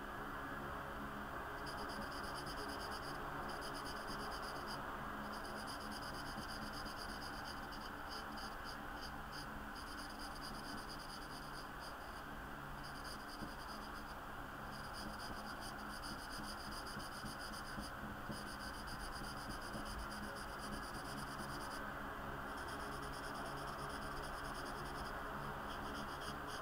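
Felt-tip marker scratching and rubbing on sketchbook paper as a black area is coloured in, in stretches that come and go, over a steady hiss.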